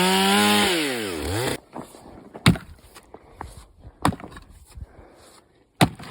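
Stihl chainsaw revving up, then winding back down and cutting off suddenly about a second and a half in. A few sharp knocks follow, the loudest near the end.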